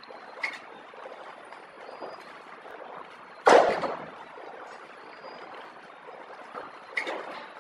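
Horizontal pillow-type flow wrapping machine running with a steady mechanical whir and clatter. A loud sharp clack about halfway through, and lighter clicks near the start and near the end.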